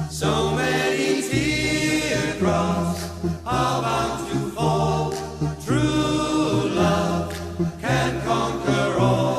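Background music: a song with singing voices over steady low accompaniment.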